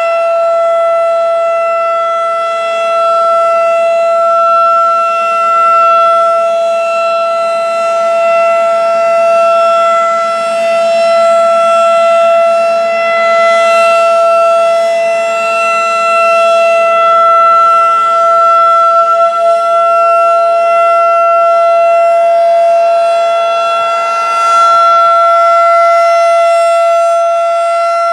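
Federal Signal 2001-DC "Roundback" rotating tornado siren sounding a steady tone at a constant pitch, its loudness swelling and fading gently as it sweeps.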